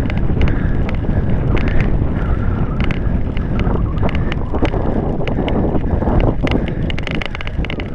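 Wind buffeting the microphone, a dense steady rumble, with many sharp clicks scattered throughout.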